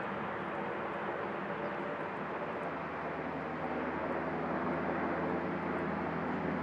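UH-60 Black Hawk helicopter in flight: a steady rotor and twin-turbine drone with several steady tones in it, growing a little louder about four seconds in.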